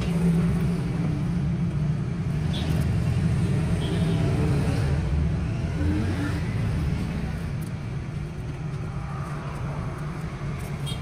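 A steady low machine hum, with a few faint crackles a few seconds in.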